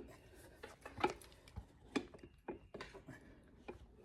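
Tire spoons clicking and knocking against a motorcycle wheel rim as the tire bead is pried up and worked off, a handful of separate sharp taps.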